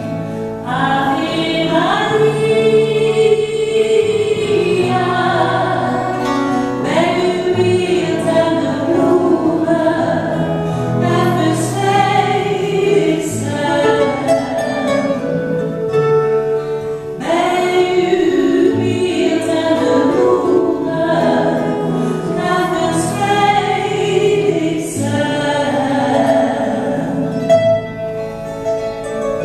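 A woman singing a song with two acoustic guitars, with a choir singing along.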